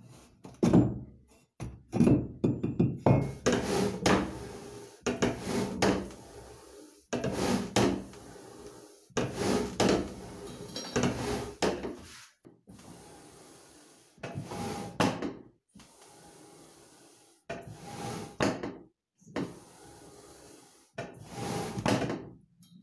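Hand-pumped wooden fuigo box bellows working in repeated strokes every one to two seconds, pushing air through the steel tuyere pipe. Each stroke gives a rush of air with wooden rubbing and knocking.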